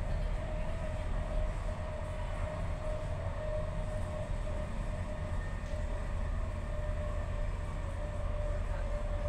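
Stadler FLIRT ER160 electric multiple unit running, heard from inside the carriage: a steady low rumble with a constant whine held at one pitch.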